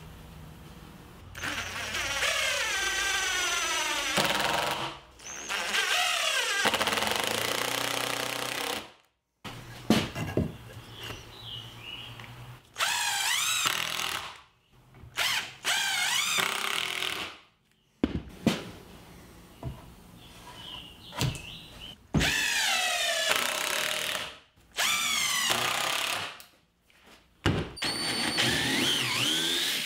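Cordless power tools driving and boring into pine two-by-fours: an impact driver sinks screws into a glued stack of boards, then a drill bores holes into a two-by-four block. The tools run in a series of bursts a few seconds long with short pauses between them, each burst a motor whine that rises and falls in pitch as the tool loads up.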